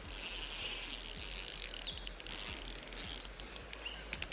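Fishing reel being worked while fighting a hooked rainbow trout: a steady high-pitched mechanical whirring that breaks off briefly now and then. A few short bird chirps sound over it.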